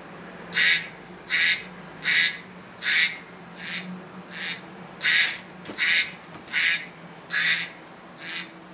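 A phone alarm sounding: a short, bright call repeating evenly about once every three-quarters of a second.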